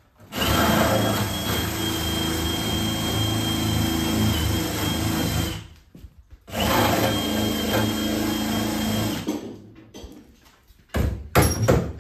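Power drill running in two long runs, about five seconds and then three, with a steady high whine, working on the car's sheet-metal bodywork. Near the end comes a quick series of sharp metal taps.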